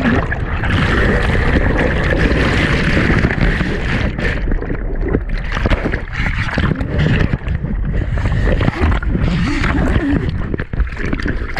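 Boat under way on open water: a loud, steady rushing of engine, water and wind, heaviest in the low rumble.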